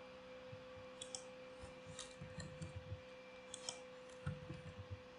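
Faint computer mouse clicks, a handful spaced out, with a few soft low thuds, over a faint steady hum.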